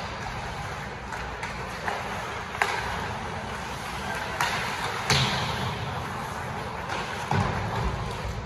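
Ice hockey play echoing in an indoor rink: steady skate and arena noise with several sharp knocks of sticks and puck, the loudest about five seconds in.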